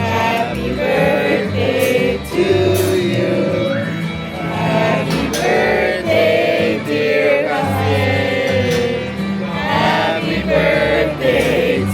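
Music with a group of singing voices over a steady bass line.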